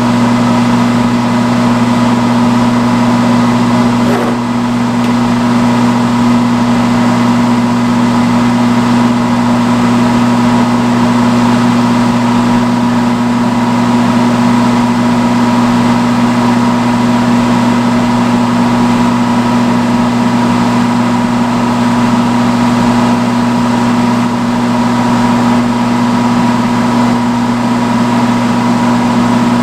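Salon hood hair dryer running: a loud, steady electric motor hum under an even rush of blown air.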